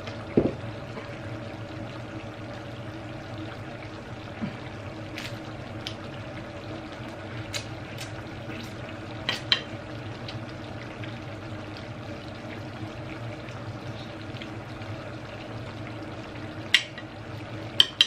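Eating crab by hand: scattered sharp clicks and cracks of shell and fork on the plate, with a dull thump about half a second in and two loud clicks near the end, over a steady low hum and hiss.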